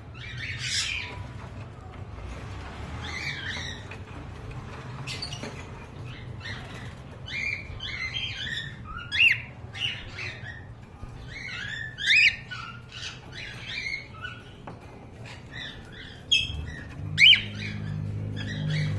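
Many cockatiels chirping and squawking, short calls overlapping one another, with the loudest shrill calls about nine, twelve and seventeen seconds in.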